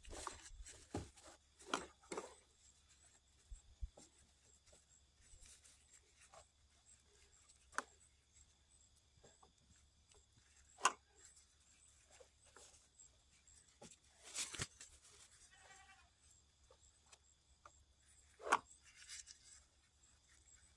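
Damp cloth wiping the rims of glass canning jars filled with corn, with scattered faint taps and clinks against the glass. A brief, faint pitched call sounds in the background a little past the middle.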